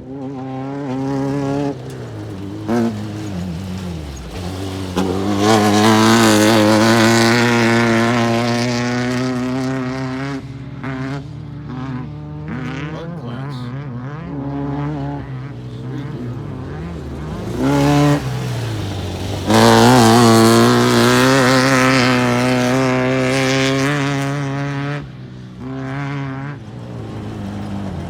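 Side-by-side UTV engine running under way, its pitch rising and easing off several times with short drops as the throttle lifts. Twice it swells into a long, loud rushing stretch.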